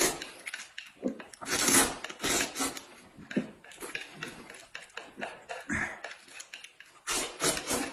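Noodles being slurped and chewed close to the microphone: a string of uneven slurps, the longest about two seconds in, with quicker ones near the end.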